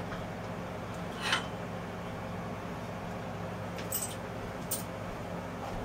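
A steady low kitchen hum with three light clicks and clinks spread through it, like dishes being set down; one falls as a plate is put on a steel bowl beside the stove.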